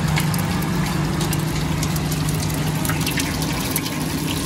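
Oil sizzling and crackling on a flat tawa griddle as an egg tikki fries in it, over a steady low hum.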